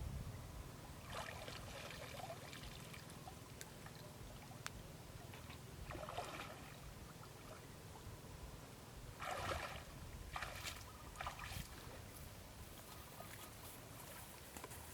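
Shallow water sloshing and splashing in several short bursts over a low steady rumble.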